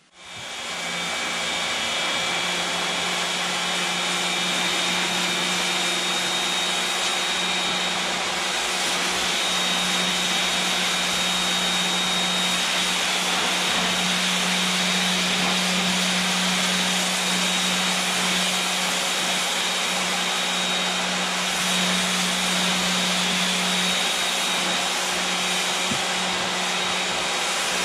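A motor-driven machine running steadily: a constant low hum under a wide, even hiss.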